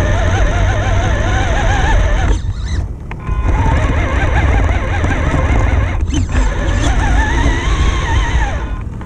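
Electric motor and gear drive of an RC crawler whining, the pitch rising and falling with the throttle and dropping out briefly twice, over a steady rumble of the tyres crawling across gravel.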